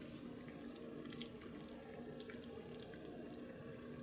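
Faint wet mouth clicks and smacks of someone licking peanut butter off a plastic toy lightsaber blade: a few sharp ticks scattered through, over a low steady hum.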